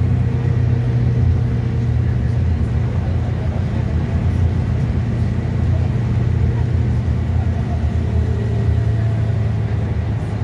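Scania K320 city bus's rear-mounted diesel engine running steadily, heard from inside the passenger cabin as a constant low hum.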